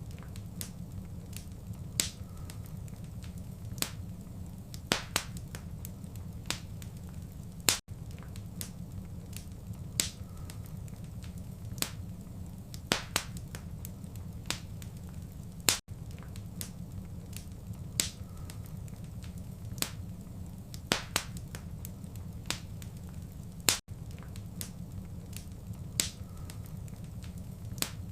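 Wood fire crackling, with irregular sharp pops and snaps over a steady low rumble. A brief dropout comes about every eight seconds, where the short recording repeats.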